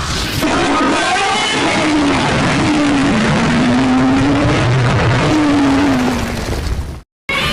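A Godzilla sound effect: one long, loud, rough blast of noise with a low wavering pitch that dips and rises, cutting off suddenly about seven seconds in, followed after a brief gap by the start of another effect.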